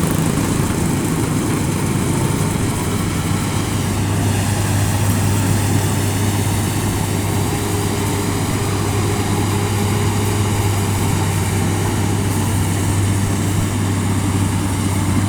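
Engine of farm machinery running steadily with a strong low hum, which grows stronger and steadier about four seconds in.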